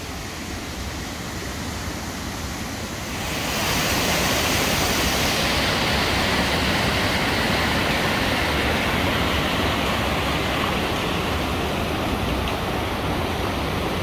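Rushing white water of the Nant Dol-gôch stream tumbling over rocks in a cascade at Dolgoch Falls: a steady rush that grows louder about three and a half seconds in and then holds.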